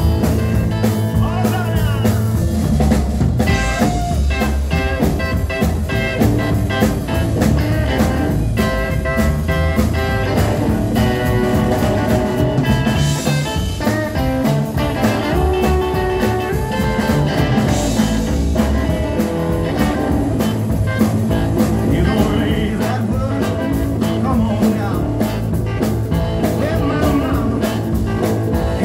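Live rock'n'roll band playing a blues-tinged number: electric guitar over a driving drum kit and upright bass, with no sung words.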